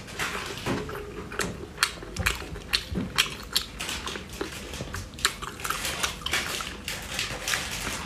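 Close-up wet eating sounds of snails in spicy sauce: lips smacking, sucking and slurping as the meat is pulled from the shells by hand, heard as a dense run of short, irregular clicks.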